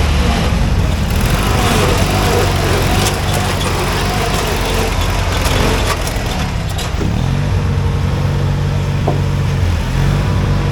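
Riding lawn mower engines running under throttle, their pitch shifting as they speed up and slow down. Scattered clatters and knocks come between about three and seven seconds in.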